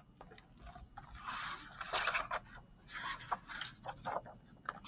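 A page of a picture book being turned and the book handled: paper rustling and sliding in a few short bursts, with light taps.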